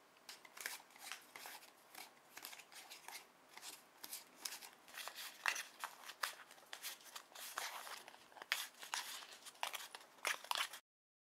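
Small plastic spoon scraping and tapping in a plastic tray, stirring candy powder and water into a crumbly dough: an irregular run of light scrapes and clicks that cuts off abruptly near the end.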